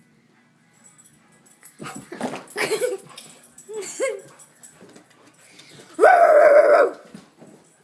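A dog gives short yips and whimpers amid scuffling, then, about six seconds in, a person lets out one loud scream nearly a second long.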